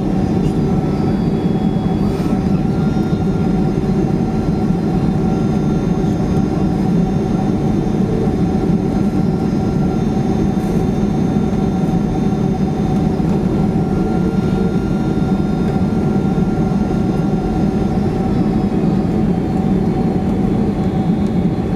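Steady jet engine and airflow noise heard inside a Boeing 767-300ER's cabin as it descends to land: a deep, even rumble with several steady whining engine tones over it. Near the end the higher tones shift slightly in pitch.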